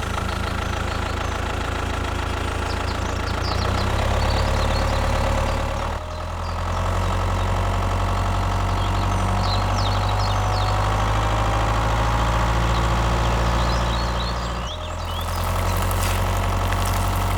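Tractor engine idling steadily, its tone shifting abruptly about six seconds in and again near the end.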